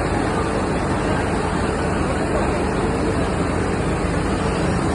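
Loud, steady rush of water, an even noise with no let-up.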